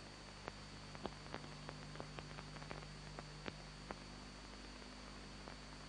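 Faint steady hum and hiss with a scatter of faint, sharp, irregular clicks, most of them in the first four seconds.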